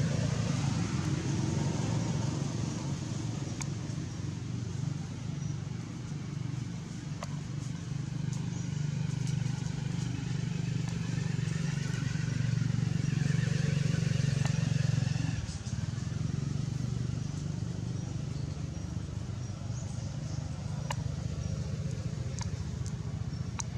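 A steady low motor hum, like an engine running nearby, that drops in level suddenly about two-thirds of the way through, with faint voices and a few light clicks.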